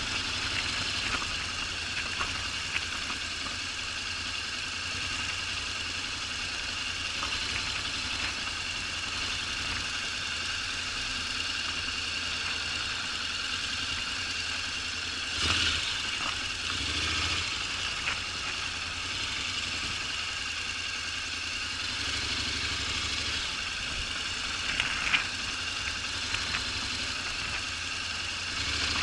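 Honda NC750X's parallel-twin engine running steadily, with a few short knocks about 15 and 25 seconds in.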